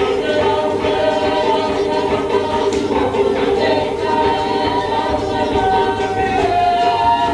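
A group of voices singing held notes together in harmony, with a percussive beat underneath.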